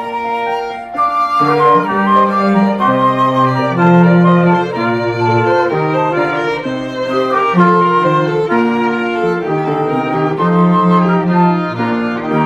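A small instrumental ensemble playing, led by violin over bowed strings. A lower line of notes, cello-like, comes in about a second and a half in and moves under the melody.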